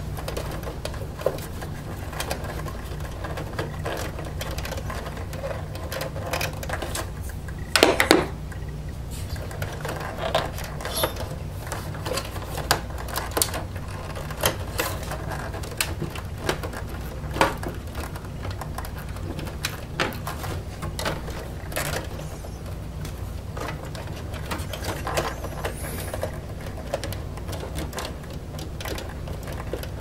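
Irregular clicks and rattles of power-supply cables and plastic connectors being handled and pulled off a desktop PC's motherboard inside its sheet-metal case, over a steady low hum. A louder clatter comes about eight seconds in.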